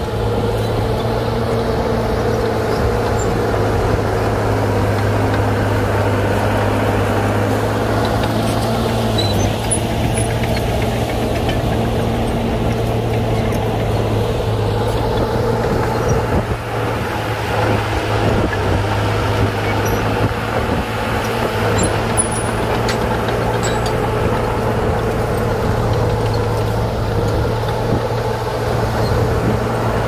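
Heavy earthmoving machine's diesel engine running steadily with a deep, constant hum, dipping briefly about halfway.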